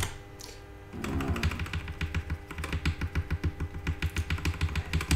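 Computer keyboard key tapped rapidly and repeatedly, a quick run of clicks lasting about four seconds and starting about a second in, stepping down a BIOS list to raise the CPU voltage. A low steady hum runs underneath.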